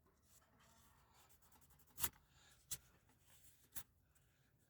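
Faint rubbing and rustling of painter's tape being handled and pressed onto a wheel, with three short crackles partway through.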